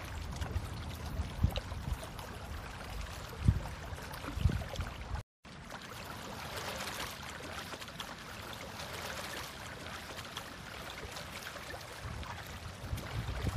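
Outdoor wind noise on a phone microphone: low rumbling gusts, then, after a brief dropout about five seconds in, a steady rushing hiss.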